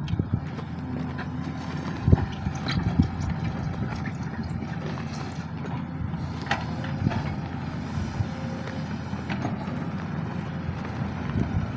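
SANY SY215C hydraulic excavator's diesel engine running steadily, with scattered short clanks and knocks.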